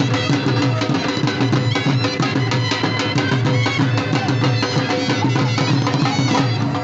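Dhamal music driven by dhol drums beating a fast, steady rhythm, with other instruments sustaining over the beat.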